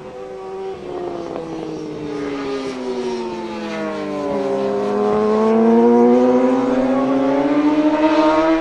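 Racing motorcycle engine at speed. Its revs fall for the first four seconds or so, then climb steadily as it accelerates, growing louder.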